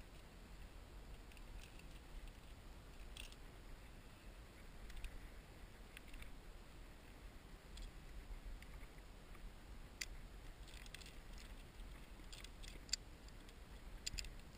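Faint metallic clicks of climbing carabiners and anchor hardware being handled and clipped at bolt hangers, a few early and more from about ten seconds in, over a faint low rumble.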